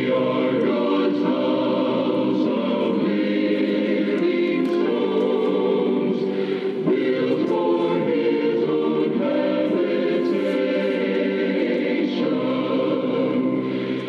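A choir singing a Christian song.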